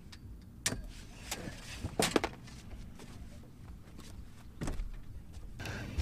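Scattered knocks and clicks of a fishing rod, reel and gear being handled in an aluminum boat, about four or five, with the loudest pair about two seconds in, over a low rumble. A faint steady hiss comes in near the end.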